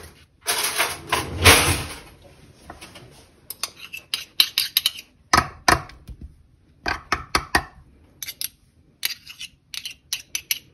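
Metal measuring spoon scraping and clinking against a mustard container and the rim of a small food processor bowl: a scraping rustle lasting about a second and a half near the start, then a string of quick sharp taps and clicks.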